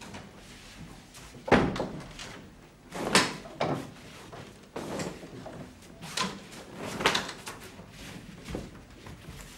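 Wooden wardrobe doors being opened and shut, a series of separate knocks and bangs, the loudest about a second and a half in.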